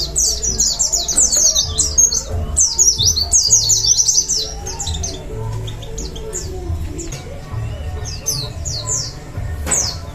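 Pleci (white-eyes) singing: fast, high twittering of quick falling notes, dense for about the first five seconds and sparser after, over background music with a steady low beat.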